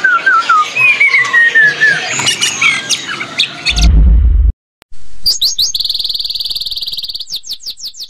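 A caged songbird singing a string of falling whistled notes mixed with sharp clicking notes. About three and a half seconds in it is cut off by a deep bass hit. After a short silence, an electronic intro jingle follows with quick high chirping sweeps and a fast, even buzzing pattern.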